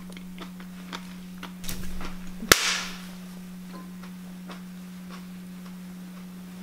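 A metal spoon clicking lightly against a ceramic bowl during eating, over a steady low hum. About two and a half seconds in comes a single sharp crack, the loudest sound, trailing off in a short hiss.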